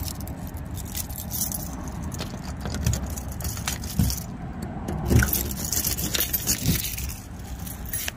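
A large bunch of keys on a chain jangling as keys are tried in a door's knob lock and deadbolt, with a few dull knocks about four, five and nearly seven seconds in.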